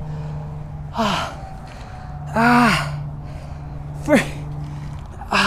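A man gasping and groaning in pain from fresh bee stings: about four breathy, voiced exhalations, the longest and loudest about halfway through.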